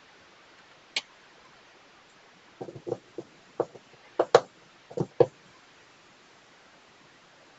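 Short, sharp taps and clicks of art supplies being handled on a desk: one click about a second in, then a quick cluster of about eight taps over the next few seconds.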